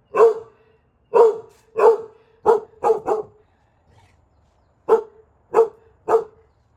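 A dog barking at a bird it has spotted, about nine barks: six in quick succession, a pause of about a second and a half, then three more.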